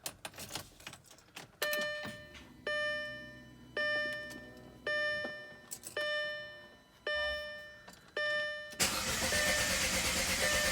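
Audi A4 B7 dashboard warning chime repeating about once a second, then near the end a loud steady whir as the starter cranks the engine, which does not start.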